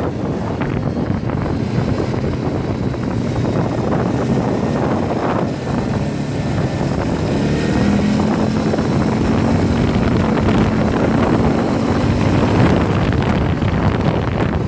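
Quad bike (ATV) engine running while riding along, heard from the rider's seat with wind buffeting the microphone. The engine note climbs gently a little past halfway, then settles.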